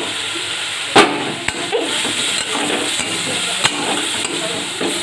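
Chopped tomatoes and spiced onion masala sizzling in hot mustard oil in a kadai, stirred with a spatula that knocks against the pan. There is one loud clank about a second in and a few lighter taps later.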